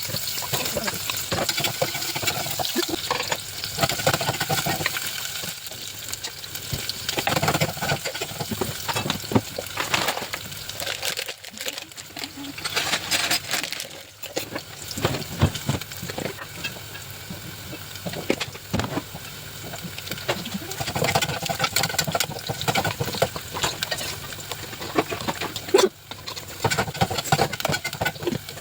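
Food sizzling in a pan while being stirred, with many short scrapes and clicks of the utensil against the pan.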